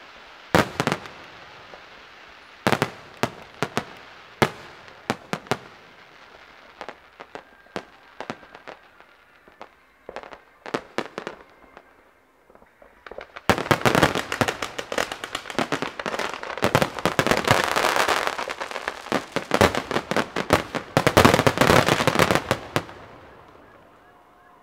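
Aerial fireworks going off: scattered sharp bangs at first, then from about halfway a dense, rapid crackling barrage that fades out near the end.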